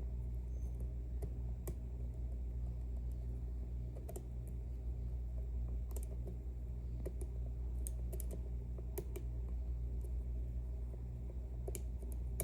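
Scattered, irregular light clicks of lock-picking tools working the sliders inside an Ezcurra C23 slider lock, over a steady low hum.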